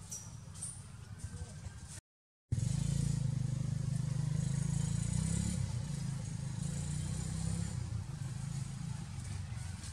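Low, steady rumble of a motor vehicle engine running nearby. It starts after the sound cuts out completely for half a second about two seconds in, and eases off a little near the end. Before the cut-out there are only faint ticks and rustles.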